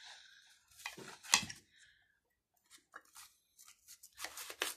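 Kitchen knife chopping an onion: short sharp chops, a pair about a second in, two more around three seconds, and a quick run of chops near the end.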